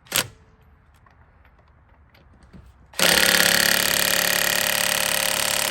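A single sharp click just after the start, then about three seconds in an Earthquake 3/4-inch cordless impact wrench starts hammering steadily on a tight brake bolt without breaking it loose.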